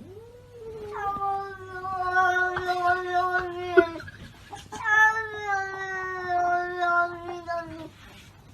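Cat yowling: two long drawn-out calls of about three seconds each, the second slowly falling in pitch.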